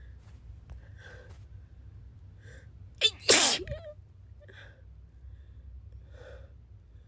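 A sick person sneezing once, loudly, about three seconds in, with a brief sharp sound just before the main burst. Faint short sounds recur about once a second around it.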